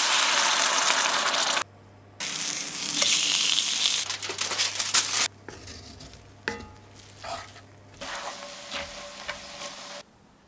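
Rice and oil sizzling loudly in a hot cast iron skillet as saffron water is poured in, with a short break near 2 s. From about five seconds in, quieter scraping and clicking of a wooden spoon stirring the rice in the pan.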